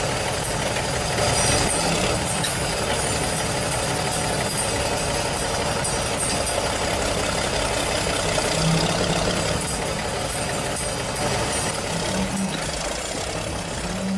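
Heavy machine's engine running steadily.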